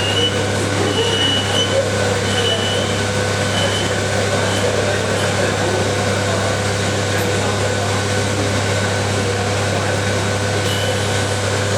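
Small CNC lathe running through its machining program with a steady motor hum. A few short high squeals come in the first few seconds and again near the end.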